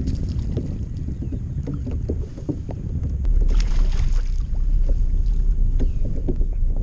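Low wind rumble on the microphone and water lapping against a kayak, with a hooked largemouth bass splashing at the surface beside the kayak for about a second, about three and a half seconds in, as it is reeled close.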